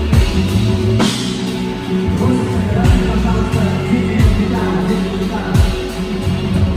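Rock band playing loud, with drum kit, bass and electric guitar, and a voice singing over them.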